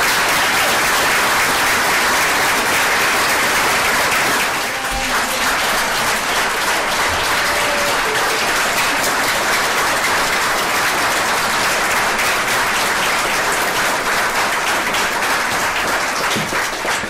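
A crowd applauding: a long, steady round of clapping that eases slightly about four and a half seconds in.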